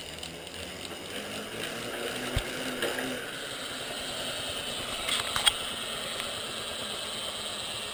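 Road bike's DT Swiss R1850 wheel and hub spinning under harder pedalling: a steady whir of the turning wheel and drivetrain that builds slightly in the first couple of seconds, with a few light clicks about two and a half and five seconds in.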